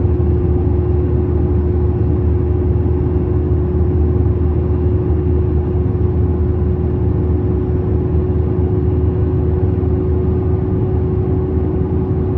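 Heavy truck-and-trailer's diesel engine running steadily under way with a low drone and a constant hum, hauling a load of about 46 tonnes gross.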